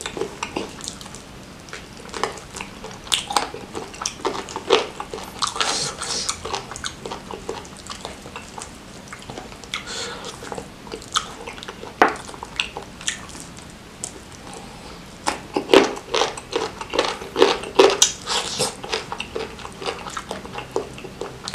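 A person eating spicy smashed fried chicken up close: chewing and lip-smacking, with many short, irregular mouth clicks.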